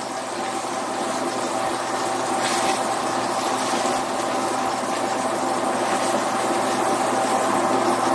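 Chicken pieces frying in a pan on an induction cooktop: a steady hiss over the cooktop's constant hum and thin whine.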